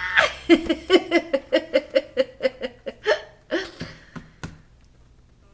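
A woman laughing hard in a quick run of short, even pulses, about four a second, dying away a little after four seconds in.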